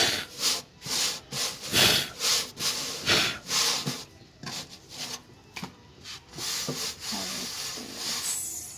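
A hand rubbing and turning a flatbread on a hot metal griddle plate, a run of quick swishes about two a second, then a cloth wiping across the bare metal top near the end.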